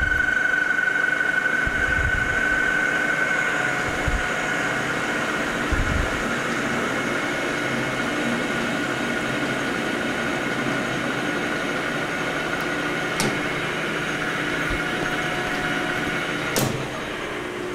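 Emco V13 metal lathe running, its spindle turning an O1 tool steel bar while a carbide insert takes a turning pass: a steady mechanical drone with a high whine that is strongest in the first few seconds. A sharp click comes about 13 seconds in, and a clunk near the end, after which the running noise drops as the lathe is switched off.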